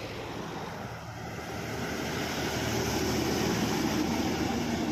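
Diesel engine and tyres of a fully loaded multi-axle goods truck, growing louder as it approaches and passes close by. The sound is loudest about three to four seconds in.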